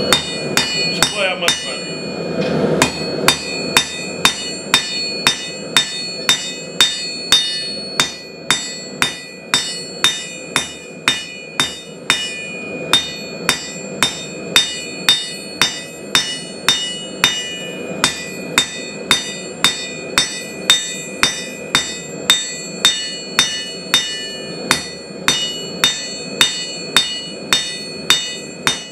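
Hand hammer forging steel on an anvil: steady blows about two a second, each leaving a high ringing tone.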